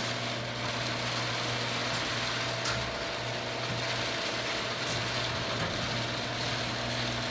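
Garage door opener motor running steadily while the door travels down, a constant hum with a couple of faint clicks from the door's travel.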